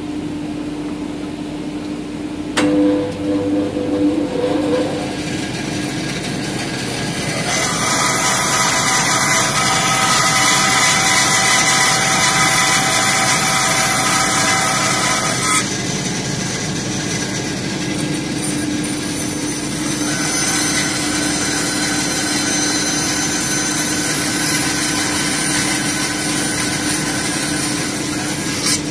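Bandsaw running with a steady hum while its blade cuts through a wooden board to form a tenon, the cutting sound swelling in two long stretches, from about seven to fifteen seconds in and again from about twenty seconds in. A sharp click sounds about three seconds in.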